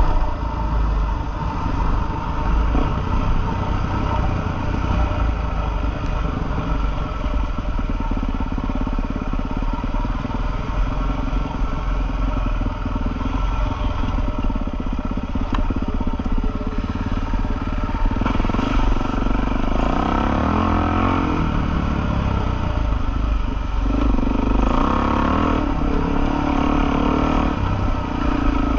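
Single-cylinder four-stroke Suzuki trail bike engine running under throttle, heard from on the bike, with rattles of the chassis over rough ground. The revs pick up about two-thirds of the way through and again near the end.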